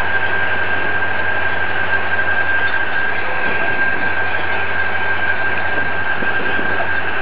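Hydraulic crane on a lorry running steadily while it holds a suspended engine: a loud, unchanging engine drone with a constant high whine over it.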